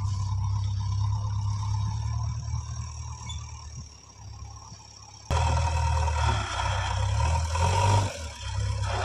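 Diesel engines of a JCB 3DX backhoe loader and farm tractors running as the loader works earth into a tractor trolley. The sound fades a little, jumps abruptly louder about five seconds in, and dips briefly near the end.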